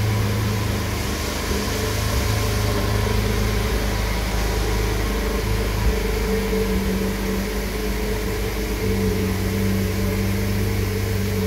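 Steady low mechanical hum with a few held tones that shift slightly partway through, like a motor or engine running.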